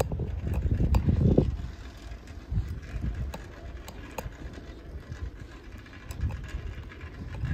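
Wind buffeting the microphone on a moving bicycle, strongest in the first second and a half and easing off after that, with scattered light clicks and rattles from the bike.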